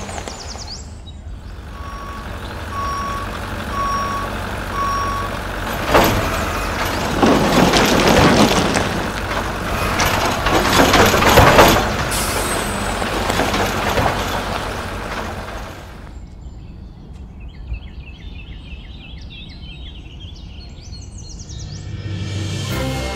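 Garbage truck sound effects: a truck engine running, four reversing beeps, then a loud, long rattling clatter of trash being tipped out of the truck. Birds chirp for the last few seconds.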